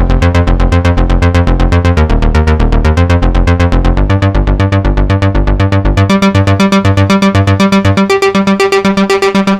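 Moog Sub 37 synthesizer playing a sequenced 'Outrunner' bass patch: a fast, even run of repeated staccato bass notes, about eight a second. About six seconds in, the lowest notes drop away and the line carries on in a higher register.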